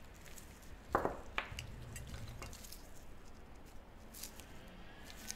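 Quiet handling sounds of confectionery tools and gloved hands working soft bean-paste dough, with two short knocks about a second in.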